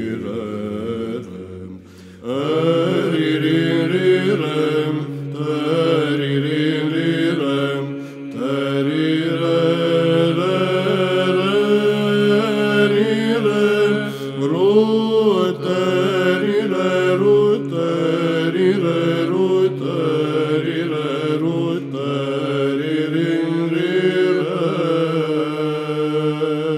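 Byzantine chant: male chanters singing a kratema on wordless syllables ('te-ri-rem') over a steady low held drone, the ison. The singing breaks off briefly about two seconds in, then resumes.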